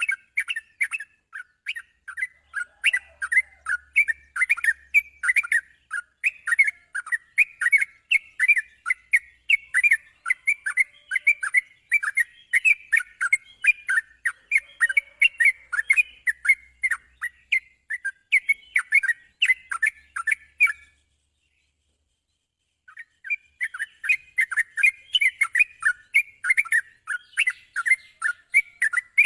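Yellow-vented bulbuls (trucukan) calling, a dense, fast string of short chirps. It cuts out to silence for about two seconds after two-thirds of the way through, then carries on.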